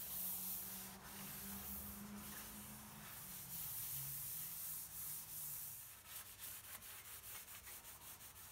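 A rag rubbing an oil-and-spar-varnish finish over a hardwood tabletop, a soft swishing. From about six seconds in the strokes turn quick and rhythmic, about four a second.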